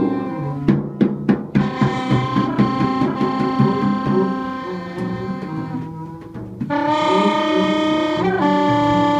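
Free jazz trio playing live: a reed horn holds long tones over drums and double bass, with a flurry of drum strokes in the first few seconds. About seven seconds in, the horn comes back louder on a sustained note.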